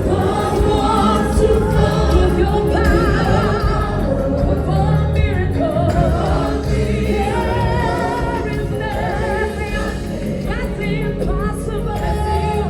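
Gospel choir singing with wavering, vibrato voices over a steady heavy bass accompaniment.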